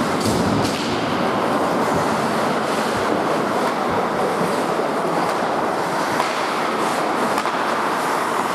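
Ice hockey in play on an indoor rink: a steady rushing noise of skates on the ice and the arena, with a few scattered clacks of sticks and puck.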